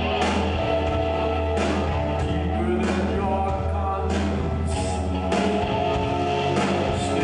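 Gothic rock band playing live: a sustained bass drone and held guitar or keyboard chords, with drum and cymbal hits landing in a slow, even beat about every second and a quarter.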